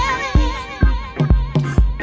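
Background music with a steady beat of about two strikes a second and a singing voice over it.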